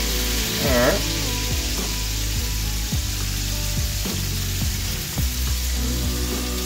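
Blue catfish fillets sizzling steadily in hot oil in a skillet, with background music underneath.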